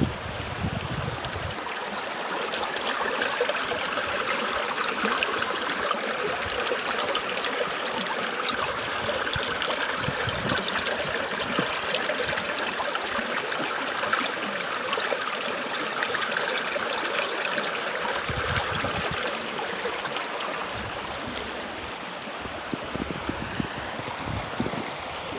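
Rushing stream water: a steady, even hiss of flowing water.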